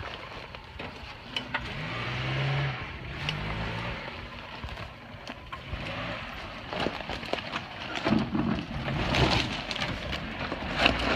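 Suzuki Sidekick's four-cylinder engine running at low revs, with a few small rises as the 4x4 crawls through woodland undergrowth. In the second half, brush and sticks crackle and snap under the tyres.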